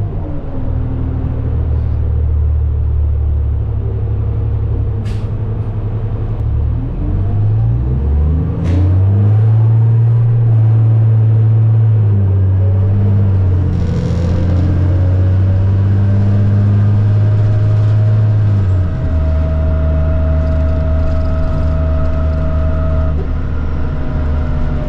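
New Flyer D40LFR diesel city bus heard on board while under way. Its engine note dips and climbs again about seven seconds in, then shifts in steps around twelve and nineteen seconds as it changes gear. A whine rises and falls above it in the second half, and two sharp clicks come about five and nine seconds in.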